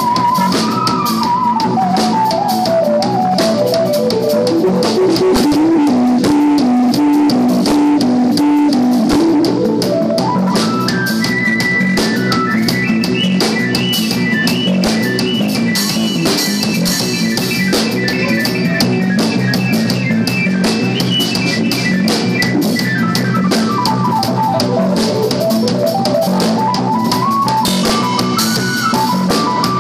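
Jazz-fusion music: a drum kit played busily over a steady bass line, with fast melodic runs that climb and fall several times.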